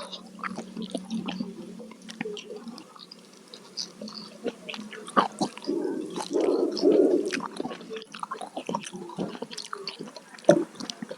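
Close-miked eating sounds: wet, clicking chewing with short crunches at an irregular pace, and a louder, fuller stretch about six to seven seconds in.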